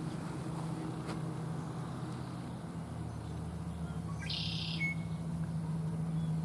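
A bird gives one short, high, buzzy trill about four seconds in, ending in a brief clearer note. It sounds over a steady low hum.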